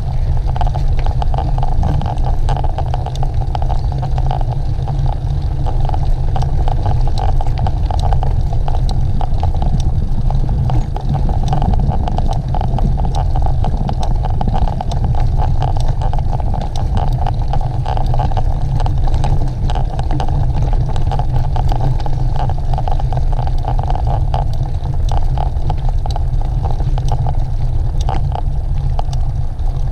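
Steady wind rumble on the microphone of a camera moving along a course, with a constant scatter of small clicks and rattles from travel over rough ground.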